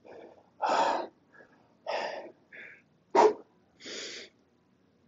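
A man breathing hard, with short noisy breaths about once a second and one sharper exhale about three seconds in: he is winded from heavy kettlebell swings.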